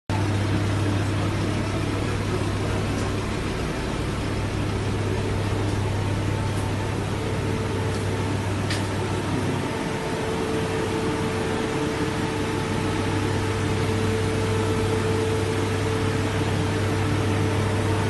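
Steady drone of the grow room's ventilation: inline duct fans and air equipment running, with a low hum underneath. A higher steady tone joins about seven seconds in, and the low hum briefly drops out near the middle.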